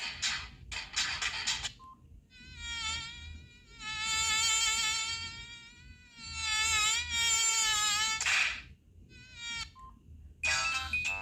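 Samsung SGH-D500C phone playing one of its built-in sounds through its small speaker: a high, buzzing electronic whine that wavers slightly in pitch and comes in several swells of one to two seconds. A new melodic ringtone starts near the end.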